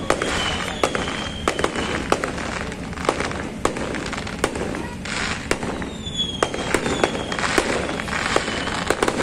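Fireworks display: a rapid, irregular run of sharp bangs and crackling as the shells burst, with a few short falling whistles.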